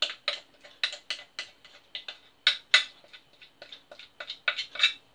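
A utensil scraping and knocking against the inside of a mixing bowl as cake batter is scraped out into a loaf tin, a quick run of short clicks, about three or four a second.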